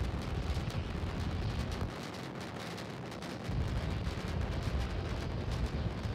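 Starship SN8's three methane-fuelled Raptor rocket engines firing in ascent burn: a heavy rumble with sharp crackling throughout, the low end dipping for a while in the middle and swelling again.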